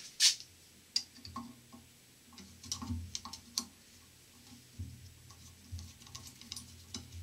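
A screwdriver working screws down on a Delco-Remy starter's end plate: a run of light, irregular metallic clicks and ticks, the sharpest just after the start and a cluster about three seconds in, over a faint low hum.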